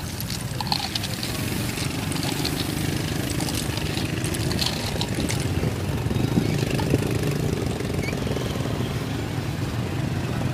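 Street ambience dominated by a vehicle engine idling with a steady low hum, with faint light clicks in the first half.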